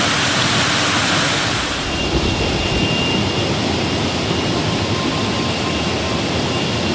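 Steady rushing water noise, which about two seconds in gives way abruptly to a duller, lower rumbling noise with a faint thin whine.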